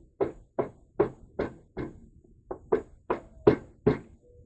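Repeated sharp knocks, about two and a half a second with a brief pause midway, as a half-inch carriage bolt is knocked through a wooden deck post without a hammer.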